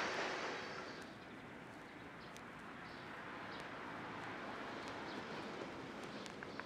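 Steady machine noise from an automatic chipboard production line fades out over the first second. A faint hiss follows, with a few scattered faint clicks and small high chirps.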